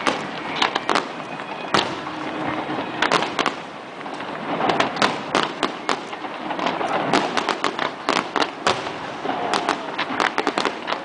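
Fireworks display: a rapid, irregular series of sharp bangs and crackles over a continuous din, with dense volleys a few seconds in, again past the middle and near the end.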